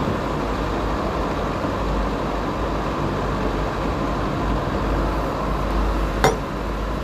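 Steady low rumble and hiss of background noise, with one sharp clink about six seconds in.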